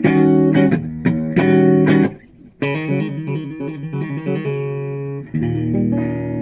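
Fender Stratocaster electric guitar played on its fourth pickup position, middle and neck single coils together: a run of strummed chords, a short break about two seconds in, then picked notes and a chord left ringing near the end.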